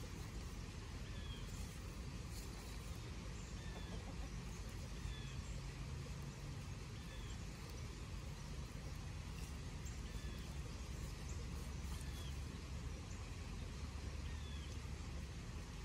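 A bird chirping briefly about once a second over a steady low rumble.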